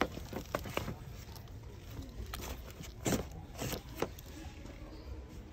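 Plastic slime tubs being handled and moved about, giving a few light, scattered knocks and rustles over a low steady rumble.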